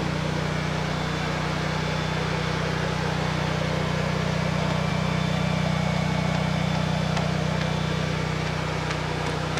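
An engine running at a steady idle: a constant low hum with no change in speed.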